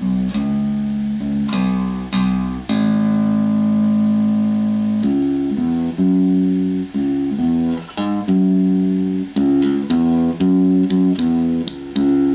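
Rickenbacker-type electric bass with homemade humbucking pickups, played as a demonstration of how the pickups sound: a run of plucked notes, with long held notes near the start and quicker notes from about five seconds in, ending on a note left to ring and fade.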